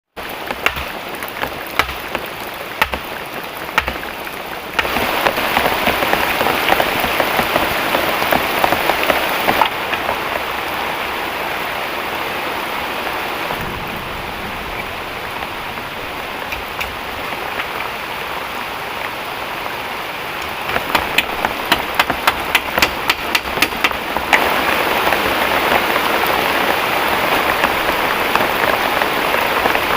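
Heavy rain falling in a steady hiss, with clusters of sharp, close drop impacts early on and again about two-thirds of the way through. The overall level jumps abruptly a few times, as between different shots of the rain.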